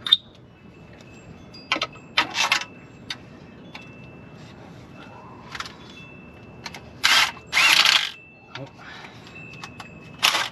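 Cordless drill-driver spinning bolts on a Nissan Frontier's automatic-transmission filter and valve body, run in several short bursts of under half a second each.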